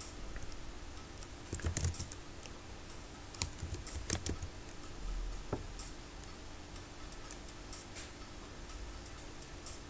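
Keystrokes on a computer keyboard: a few scattered clicks with pauses between them, as text is typed slowly.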